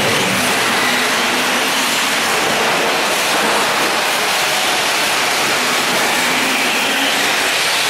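Electric 4WD radio-controlled short course trucks racing on a dirt track: a steady, loud hiss-like mix of motor and gear whine and tyres on dirt.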